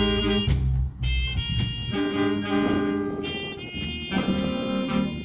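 Big band playing live, a saxophone section sounding held chords that change every second or so, with guitar.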